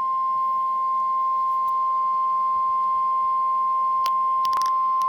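NOAA Weather Radio warning alarm tone: a single steady 1050 Hz sine-wave tone held unbroken, signalling that a weather warning broadcast follows. A few faint crackles of radio static sound near the end.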